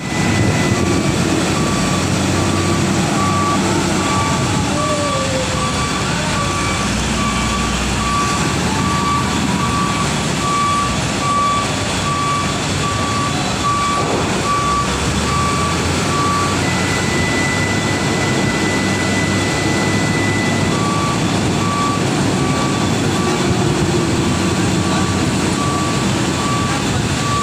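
Heavy diesel machinery, a wheel loader and excavators, running steadily while a reversing alarm beeps at a regular pace. The beeping stops for a few seconds past the middle, then starts again.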